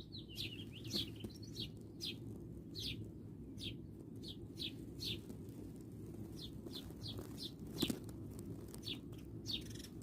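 Small birds chirping repeatedly: short, high, downward-sweeping chirps every half second or so, over a steady low background rumble. A single sharp tap a little before the eight-second mark is the loudest sound.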